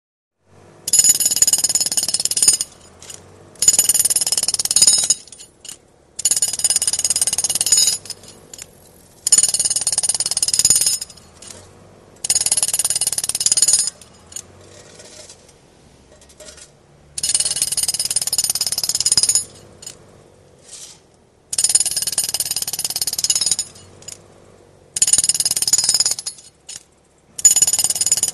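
Road drill (jackhammer) hammering in repeated bursts of one to two seconds, about nine in all, with short, much quieter pauses between them.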